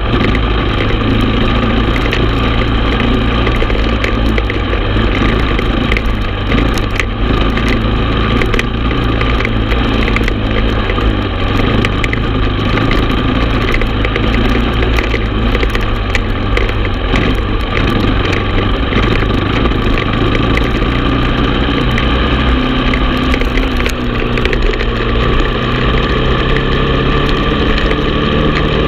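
Honda TRX450 ATV's single-cylinder four-stroke engine running steadily under way, with frequent clicks and knocks. Near the end the engine pitch rises as it speeds up.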